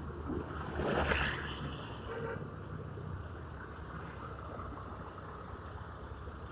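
Honda Scoopy motor scooter riding along in town traffic: steady engine and road noise, with a brief louder whoosh about a second in.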